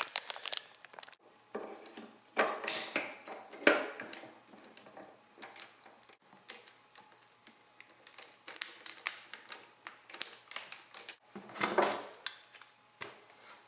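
Steel saw chain for a 16-inch bar clinking and rattling as it is handled and fitted onto the bar of a Husqvarna 435 chainsaw, in irregular runs of light metallic clicks, busiest a couple of seconds in and again after about eight seconds.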